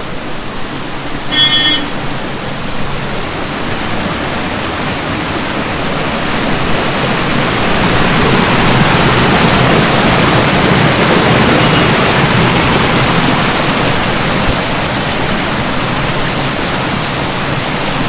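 Steady rush of water pouring down a small waterfall over rocks, loud for its size, swelling a little midway. A short high-pitched chirp sounds about a second and a half in.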